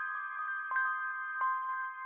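Background music: a slow melody of bell-like chiming notes, each ringing on as the next is struck.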